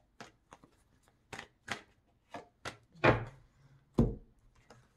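Tarot cards being shuffled by hand: a quick run of short card snaps and swishes, then two louder thumps about three and four seconds in as cards are put down on the table.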